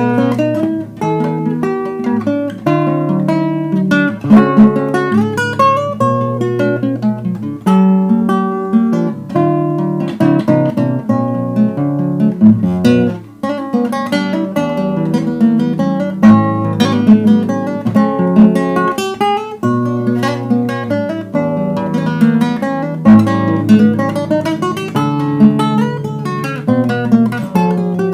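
Acoustic guitar playing a lively instrumental piece, plucked notes mixed with strummed chords.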